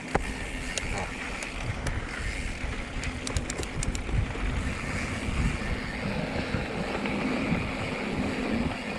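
Mountain bike rolling along a trail: a steady rumble of tyres and wind buffeting the microphone, with a quick run of light clicks about three to four seconds in.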